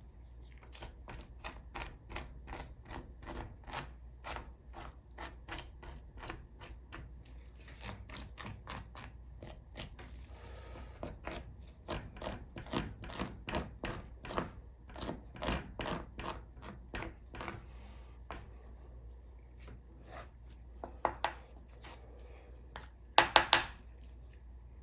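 Plastic skillet scraper scraping fat from the underside of raw chicken skin in quick short strokes, about three a second, with a brief pause partway through. A short burst of louder knocks comes near the end.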